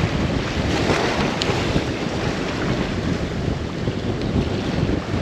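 Wind buffeting the microphone, a steady gusty rumble, over the wash of surf.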